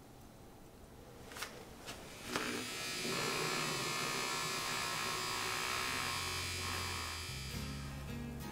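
Battery-powered handheld milk frother whirring in milk in a ceramic mug. It starts about two seconds in after a couple of small knocks and runs steadily for about five seconds. Acoustic guitar music comes in near the end.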